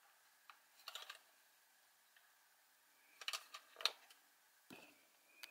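Faint scattered clicks and taps of a plastic Instax Wide 300 camera body being handled and turned over in the hands. They come in small clusters, about one second in and between three and four seconds in, and the sharpest tap falls near four seconds.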